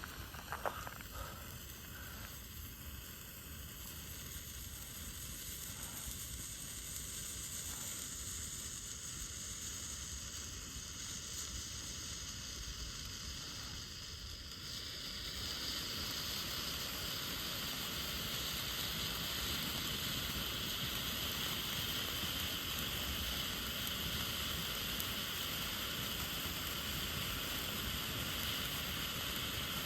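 Weco Funkenzauber Category 1 firework burning with a steady sizzling hiss as it gives off yellow colour, with a few crackles at ignition near the start. The hiss grows louder and brighter about halfway through.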